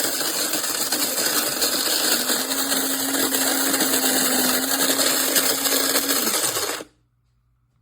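Cuisinart DBM-8 electric burr coffee grinder running and grinding coffee beans: a gritty, crunching rattle over a steady motor hum. Near the end the motor hum falls in pitch as it spins down, and the sound stops.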